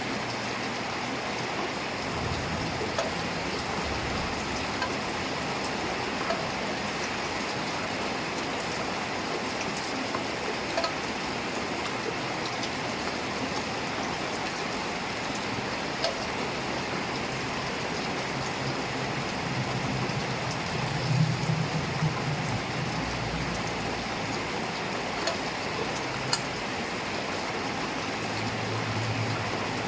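Heavy rain falling steadily, with sharp drip ticks scattered through it. A low hum rises and falls underneath a few times, loudest about two-thirds of the way in and again near the end.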